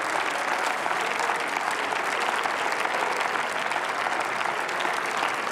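Applause from many people clapping in a large parliamentary chamber, an even, dense clatter of hands with no break.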